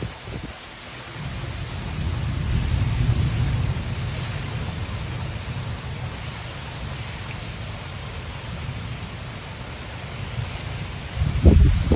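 Heavy rain pouring steadily in a windy thunderstorm. A low rumble swells about a second in and fades over the next few seconds, and loud low thumps come near the end.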